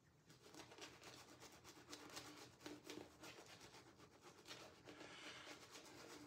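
Faint, quick scratchy strokes of a shaving brush working lather over a stubbled face, over a faint steady hum.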